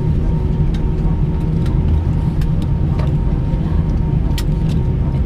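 Cabin ambience of a parked Airbus A319: the steady low rumble and hum of the aircraft's air system, with a faint steady tone over it and scattered sharp clicks and knocks from the cabin.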